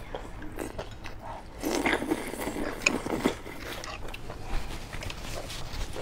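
Close-miked eating: a mouthful of hot-pot food drawn in with the lips and chewed, with wet mouth smacks and small clicks that are busiest and loudest about two to three seconds in.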